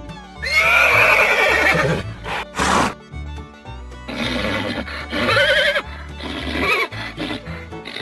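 Horse whinnying: a long, quavering neigh that falls in pitch about half a second in, then more whinnies around four seconds and near the end, over background music.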